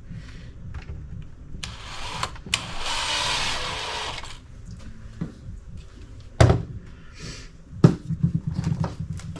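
Hard plastic parts of a cordless leaf blower's housing being handled and fitted together: scattered clicks and knocks, with two sharp knocks near the end, the second followed by a brief rattle. A stretch of hissing noise lasts a couple of seconds from about a second and a half in.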